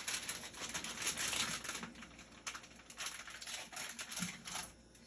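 A small dog's claws clicking and tapping irregularly on a tile floor as it moves about. The clicks thin out near the end.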